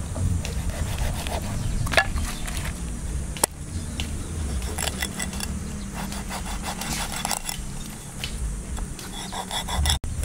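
A large knife cutting through a raw fish along its backbone on a wooden chopping block, with scraping and rubbing of the blade and a few sharp knocks against the wood, the loudest about two and three and a half seconds in.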